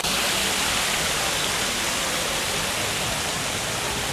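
Fountain water splashing into its basin: a steady rushing hiss that eases off slightly near the end.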